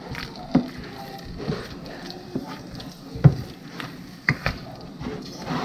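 Potato masher or spoon working mashed potatoes in a pot, with soft squishing and irregular sharp knocks against the pot about once a second.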